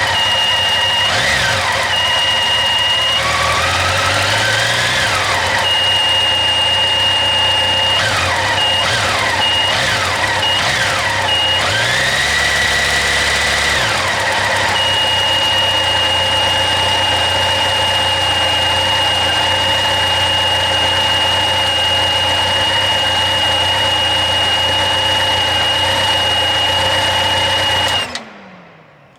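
Honda CB1100SF X11's inline-four engine running, revved up and held a few times in the first half, then settling to a steady idle, with a high steady whine that comes and goes: the water pump noise that has come back. The engine is switched off about a second before the end and its tone falls away.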